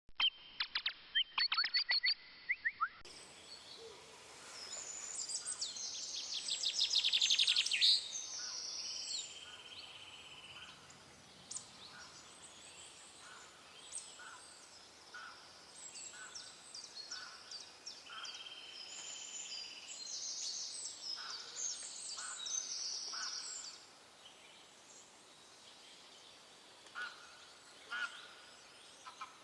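Several wild birds singing at once: quick high chirps, sweeping calls and trills, with the loudest rapid trill about six to eight seconds in.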